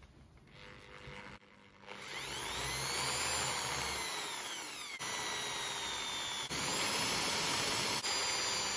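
Corded Ryobi electric drill with a 4 mm bit drilling off the rivet heads of a windscreen washer pump held in a vise. It starts about two seconds in, its motor pitch rising and falling with the trigger, and cuts out briefly three times before running on.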